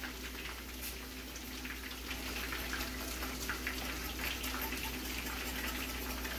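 Wire whisk stirring a thin liquid sauce in a stainless steel skillet: steady swishing and sloshing, with light ticks of the wires against the pan, over a faint steady hum.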